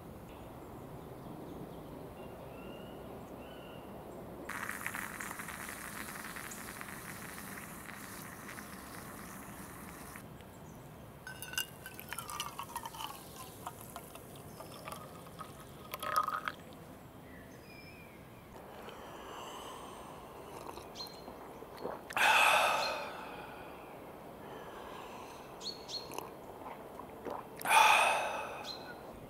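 Stainless stovetop moka pot on a homemade can spirit stove, hissing and sputtering for about six seconds as the coffee is pushed up at the end of brewing. Then freshly brewed coffee is poured from the pot into a steel mug for a few seconds. Two short, louder sounds come near the end.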